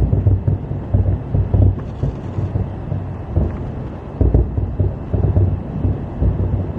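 Fireworks exploding in quick succession, a string of low, irregular booms, with wind buffeting the microphone.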